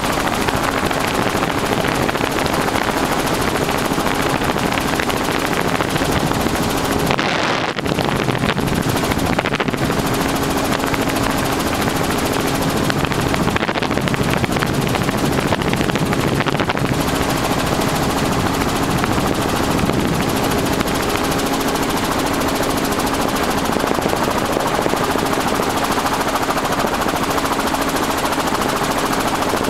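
Steady loud rushing and buffeting of wind and highway traffic on an interstate bridge, with a faint steady hum underneath.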